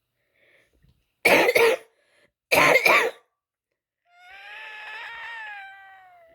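A woman with asthma gives two harsh coughs in quick succession, then draws a long wheezing breath with a high, whistling pitch that slowly drops as it fades.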